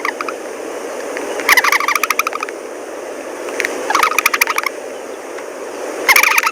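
A bird calling three times, each call a rapid rattling run of notes lasting about a second, over a steady background noise.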